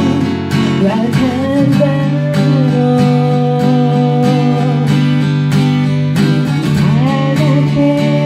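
Music: steady acoustic guitar strumming under a sustained melody line that slides between notes.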